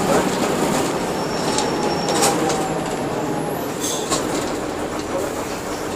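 Mercedes-Benz OF-1721 bus under way, its OM-366LA six-cylinder turbodiesel running steadily beneath rattles and squeaks from the body, with a few sharp clicks.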